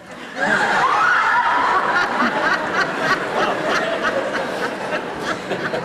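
Many voices breaking out at once in shouting and laughter, starting abruptly just after the start and carrying on loudly.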